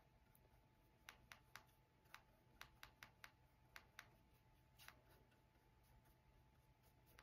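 Near silence with a dozen or so faint, light clicks at irregular spacing, most of them in the first five seconds, over a faint steady room hum.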